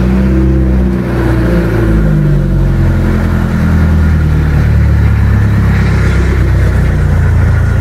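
The 4DR30 inboard diesel engine of a double-engine bangka fishing boat is running loudly. Its pitch shifts over the first few seconds, then it settles into a steady low idle.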